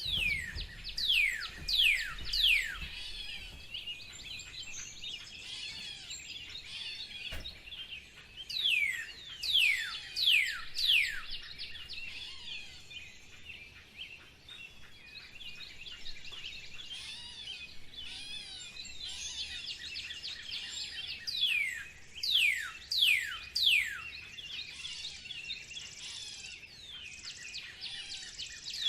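Birdsong: one bird repeats clear whistled notes that slide down in pitch, in bursts of four or five, three times over, above a steady chorus of twittering from other birds.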